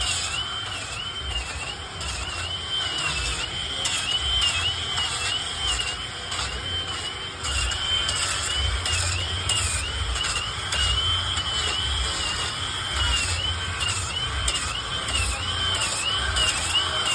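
Power tool running steadily while carving wood: a high whine that dips in pitch about once a second, with a low rumble under it.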